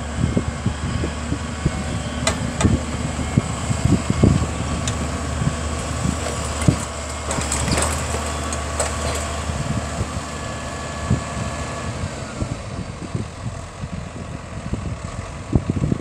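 Massey Ferguson 6480 tractor's diesel engine running steadily under load as it pulls a mounted reversible plough through the soil. Irregular low buffeting sounds over it, from wind on the microphone.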